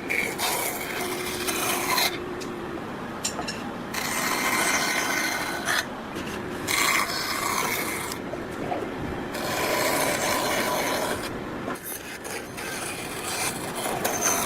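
A hand tool scraping over wood in repeated strokes, with short pauses between them.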